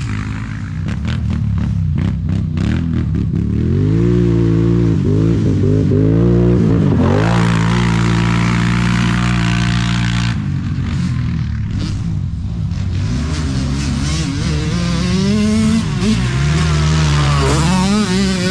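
ATV (quad) engines revving up and down again and again as they are ridden around the track, over a steadier engine note underneath.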